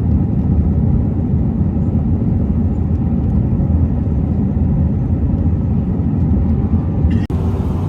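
Airliner cabin noise inside an Airbus A320: a steady low rumble of engines and airflow. It cuts out for an instant about seven seconds in, then resumes.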